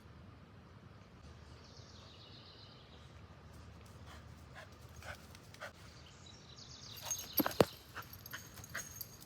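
Puppy whining and yipping in high, thin cries while playing, with scattered small clicks and a sharp knock about seven and a half seconds in.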